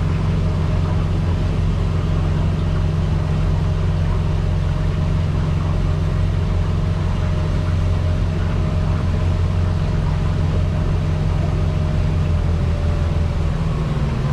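Boat engine running steadily, a constant deep hum, with a faint thin whine over it that fades out near the end.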